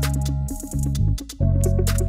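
Background music with a steady drum beat over deep, sustained bass notes; the bass shifts to a new note about one and a half seconds in.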